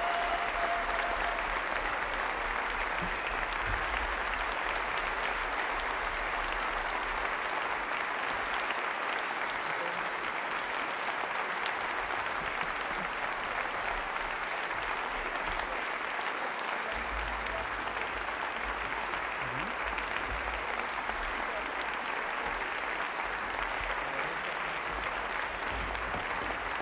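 Concert audience applauding steadily, a dense, even clatter of many hands clapping.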